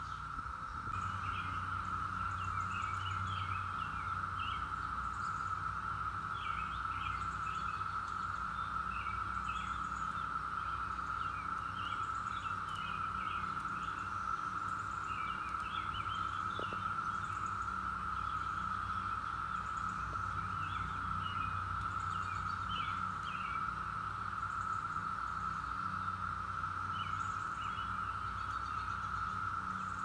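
Chorus of Brood X periodical cicadas: a steady, unbroken high drone, with birds chirping briefly over it here and there.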